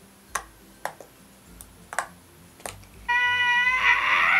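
Fingers poking and squishing sticky slime, giving a few sharp little pops. About three seconds in, a girl's loud, high-pitched held squeal starts and turns rougher into laughter.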